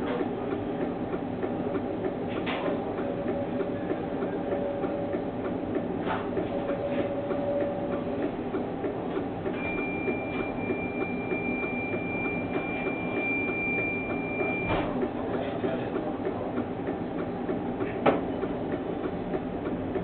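Stationary tram cab with a steady hum from the tram's equipment. A faint steady tone sounds in the first few seconds, and a high steady beep starts about ten seconds in and lasts some five seconds. A few sharp clicks come through, the loudest near the end.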